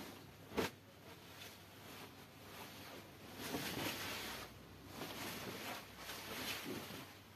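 Silk sarees rustling and swishing as they are unfolded and flung out over a pile of sarees, in several bursts, the fullest about three and a half seconds in. There is a sharp tap about half a second in.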